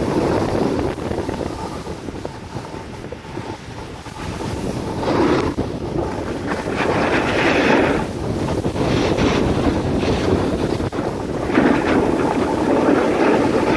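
Wind rushing over the microphone of a moving skier, mixed with skis scraping over packed snow, the rush swelling several times.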